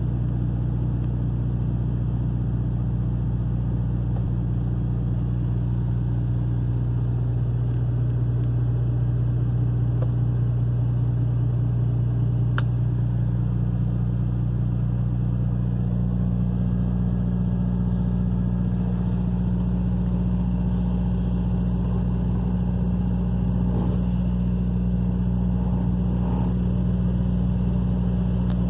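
2018 International semi truck's diesel engine running at a steady, held idle speed set through the cruise control, heard from inside the cab as an even low hum.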